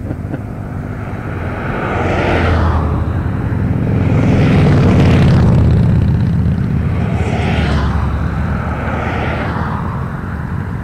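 Engines of a line of antique farm tractors, John Deeres among them, running as they drive past one after another. The sound grows to its loudest about halfway through as the nearest tractors go by, then eases off.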